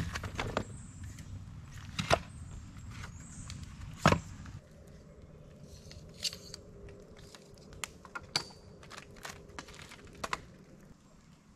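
Three sharp knocks about two seconds apart, then a run of fainter clicks and taps of objects being handled.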